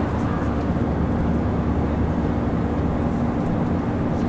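Steady drone inside an airliner cabin: an even rushing noise with a low, steady hum running under it.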